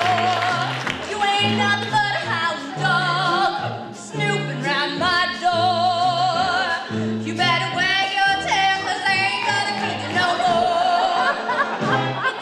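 A live musical-theatre band plays a pulsing bass line while a singer holds long notes with a wavering vibrato.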